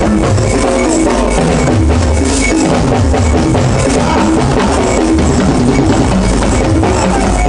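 Live band music with a steady drum beat, a repeating bass line and hand percussion, played without singing here.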